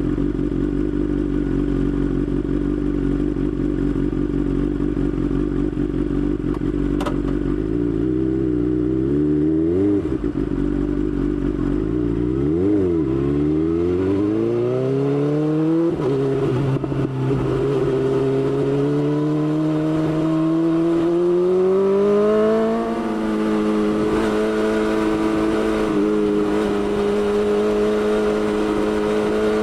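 BMW S1000XR inline-four engine running under way, steady at first. The pitch dips and recovers twice around the middle, then climbs steadily under acceleration, drops at a gear change near the end, and settles to steady cruising.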